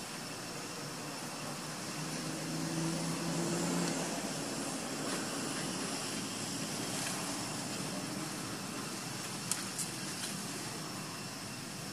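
Steady outdoor background hiss. A low hum swells about two seconds in and fades by four, and a few sharp clicks come near the end.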